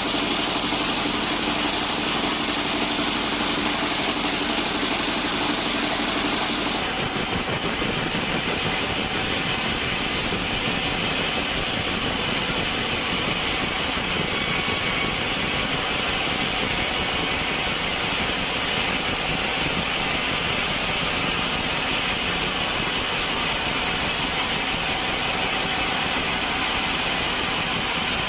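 Sawmill machinery running steadily, a continuous mechanical noise; about seven seconds in it changes abruptly, and a thin high whine sits over the noise from then on.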